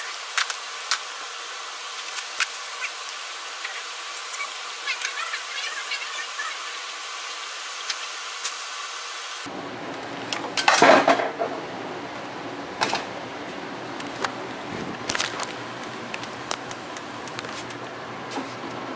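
Scattered light clicks and metallic clinks of a hose clamp, rubber intake coupler and screwdriver being handled on a truck's throttle body, with one louder clatter about eleven seconds in.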